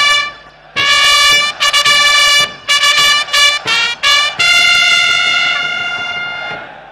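A military band's brass instrument sounds a ceremonial call. About a second in, it plays a run of short, separated notes, then holds one long higher note that fades out near the end.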